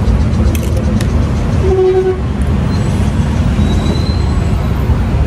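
Steady rumble of heavy road traffic, with a short horn toot about two seconds in.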